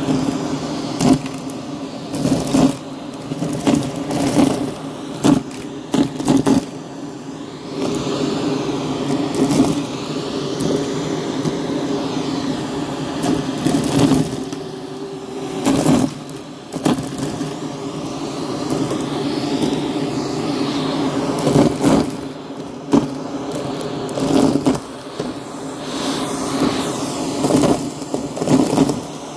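Vacuum cleaner running steadily over a rug, its motor drone broken by frequent sharp clicks and crackles.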